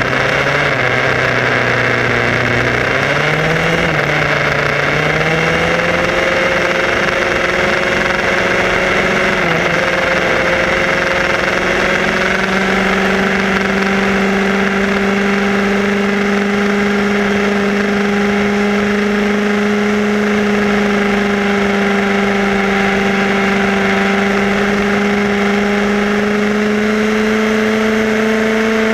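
HPI Baja 5B SS 1/5-scale RC buggy's small two-stroke petrol engine running under throttle, heard close up from the car itself. The pitch wavers with the throttle for the first few seconds, then climbs slowly and holds steady at cruising speed, over a constant hiss.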